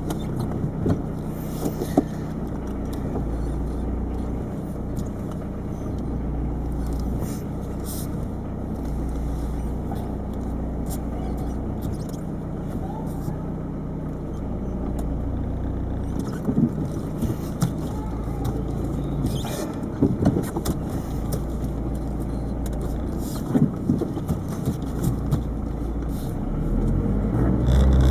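Peugeot 306 turbo diesel engine running steadily, heard from inside the cabin while driving, with scattered sharp clicks and rattles from the dash-mounted camera rattling against the dashboard. The engine grows louder near the end.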